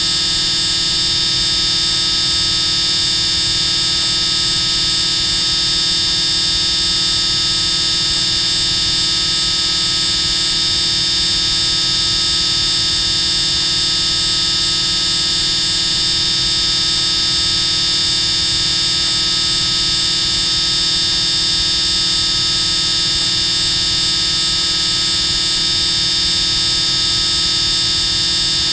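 Extremely loud buzzing that holds steady without any change, harsh and hissy, with most of its energy high up and a rough rumble underneath.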